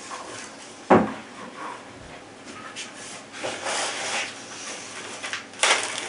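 Handling noise as an air rifle and its packaging are moved about: a sharp knock about a second in, then rubbing and rustling, and another short knock near the end.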